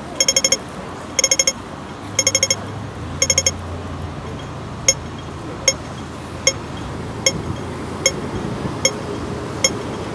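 Hong Kong pedestrian crossing audible signal: at first short clusters of rapid beeps about once a second, then, from about five seconds in, single short beeps a little under once a second, the slow pulse the signal gives while the pedestrian light is red.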